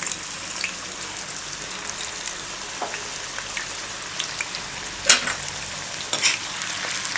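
Potato fingers deep-frying in hot oil in a wok: a steady sizzle with scattered crackles, and two louder sharp sounds about five and six seconds in.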